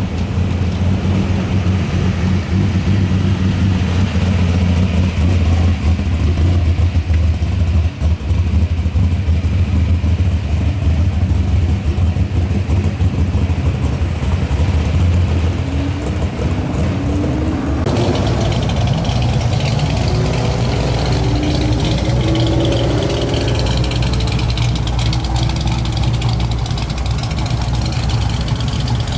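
A 1970 Chevrolet Chevelle SS's V8 running with a deep, steady exhaust note as it rolls slowly and pulls away. After a cut about 18 seconds in, another classic vehicle's engine runs with several rising revs.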